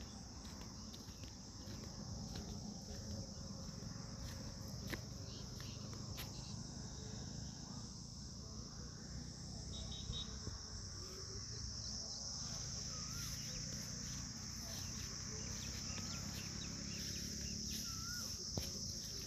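Field insects trilling in one continuous high-pitched drone, with a few faint bird chirps in the second half.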